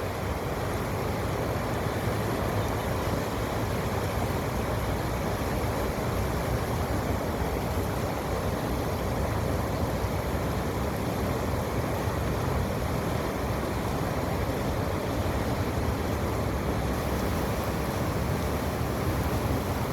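Steady rumbling noise with no clear pitch, even throughout.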